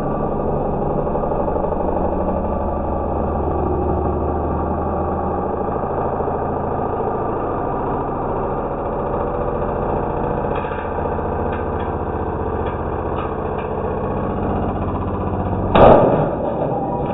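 Electric motor of a record-spinning rig running steadily at high speed, a continuous mechanical whir with a low hum. A few light ticks come in during the second half, and a sudden loud bang sounds near the end.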